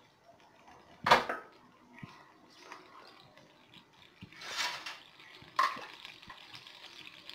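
A few sharp kitchen-utensil knocks and clatters, the loudest about a second in, then a steady hiss from the water heating in the kadai that builds near the end.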